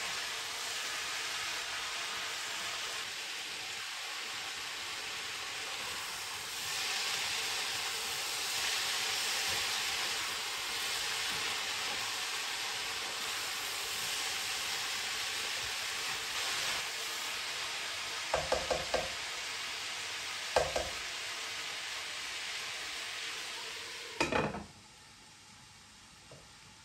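Food sizzling in a frying pan as it is stirred, with a few sharp knocks of a utensil against the pan in the last third. The sizzle stops suddenly near the end.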